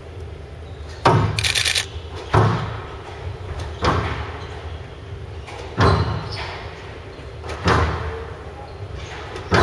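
Squash rally: the ball is struck by the rackets and hits the walls every one and a half to two seconds, each sharp smack echoing around a large hall. A brief high squeak follows the first hit.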